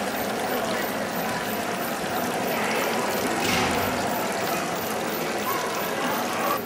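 Steady splashing and trickling of fountain water falling into a pond.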